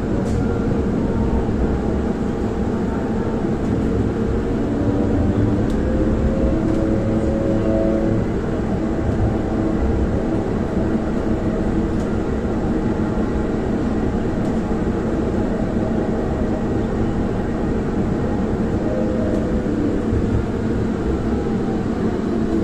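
Tram running between stops, heard from inside: a steady low rumble of wheels on rail, with a faint motor whine that glides up and down in pitch a few times.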